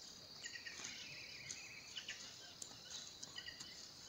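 Faint forest ambience: a steady high insect buzz, with short bird chirps now and then.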